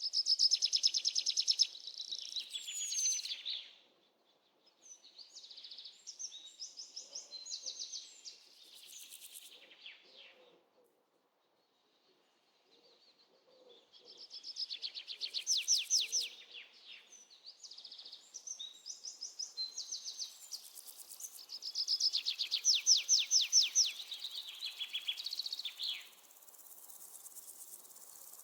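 Birds singing in bursts of rapid, evenly repeated high chirps, several trills of a few seconds each separated by short pauses.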